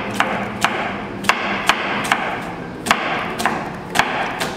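Chef's knife slicing an onion on a plastic cutting board, the blade knocking sharply against the board about twice a second.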